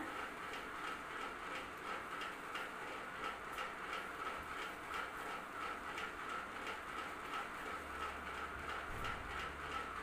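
Ceiling fan running: a steady whirring hum with a light, regular ticking about twice a second.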